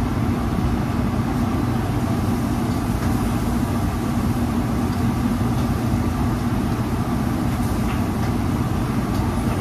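Commercial kitchen exhaust hood fan running with a steady, loud drone.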